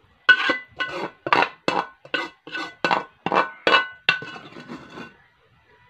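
A metal utensil clinking repeatedly against an aluminium cooking pot: about ten quick strikes in four seconds, each ringing on the same few notes, the ringing fading out about a second after the last one.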